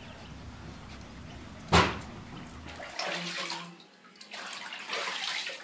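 Bath water splashing and sloshing in a bathtub as a wet Siberian husky puppy is washed by hand, in two short spells in the second half. Before that, a steady outdoor background with one sharp, loud knock a little under two seconds in.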